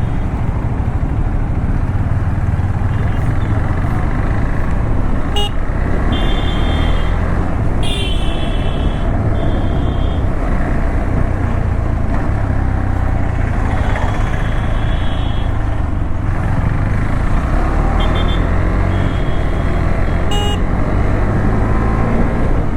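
Motorcycle riding along a road with steady engine and wind noise, while vehicle horns honk in short blasts about six times, mostly in the middle of the stretch.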